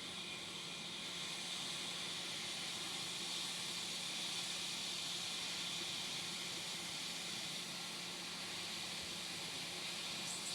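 Hot air rework station blowing a steady hiss of hot air onto a circuit board's charging port, melting the solder to desolder the port, with a faint low hum underneath.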